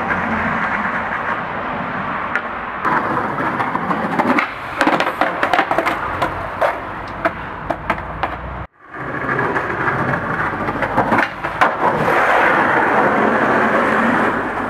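Skateboard wheels rolling over rough asphalt, a steady grinding rumble, with a run of sharp clacks from the board striking the ground in the middle. The sound cuts out abruptly for a moment, then rolling resumes with a few more clacks.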